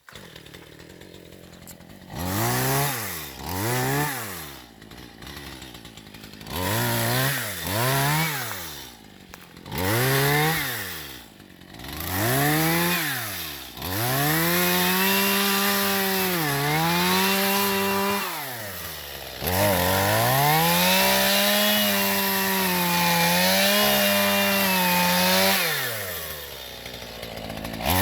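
Chainsaw engine idling, then revved up and let back down about six times in quick succession, then held at high speed for about twelve seconds while cutting wood, its pitch dipping briefly a few times, before dropping back near the end.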